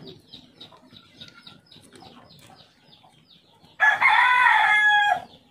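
Rooster crowing once, a single call of about a second and a half near the end.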